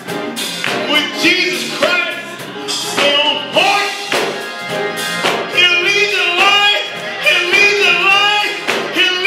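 Gospel song performed live: a singer's voice over instrumental backing.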